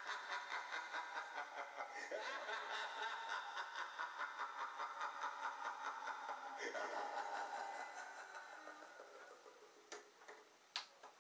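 A long, drawn-out laugh: an even run of 'ha-ha-ha' pulses, about five a second, shifting pitch a couple of times and tailing off about nine seconds in. A couple of sharp clicks follow near the end.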